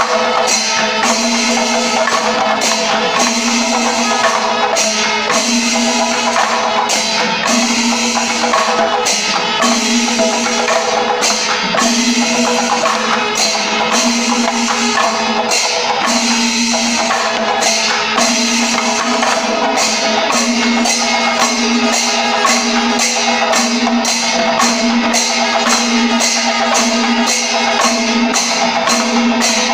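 Panchavadyam, the Kerala temple percussion ensemble, playing at full volume: timila drums beaten by hand over a dense wash of clashing ilathalam cymbals, with a sustained held tone underneath. The beat quickens in the last third.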